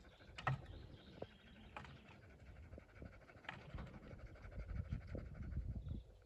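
A dog panting faintly.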